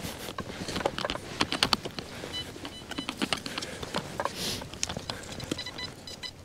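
Metal-detecting spade digging into dry sandy soil: irregular crunches and scrapes of the blade cutting and levering out earth, with a longer scrape about four and a half seconds in.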